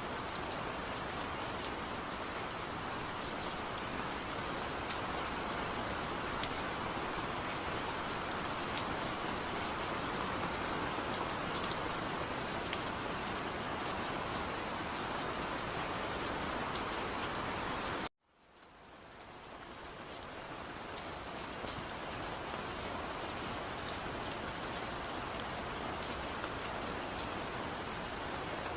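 Steady rain falling, with scattered individual drops ticking through the hiss. About eighteen seconds in the sound cuts out abruptly and fades back in over a couple of seconds.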